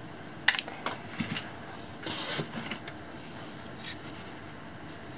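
Unpacking handling noise: a few sharp clicks and knocks as a power adapter and its cable are put down, then about a second of scraping and rubbing as a black monitor stand base is lifted out of polystyrene packaging, with a couple of lighter clicks after. A steady hiss runs underneath.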